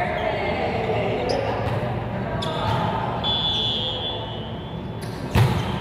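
Volleyball being struck during a rally on an indoor court: a few lighter ball contacts, then one loud hit of the ball near the end.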